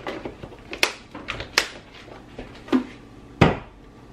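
Kitchen containers and utensils handled on a counter: several light clicks and knocks, then a heavier thump about three and a half seconds in.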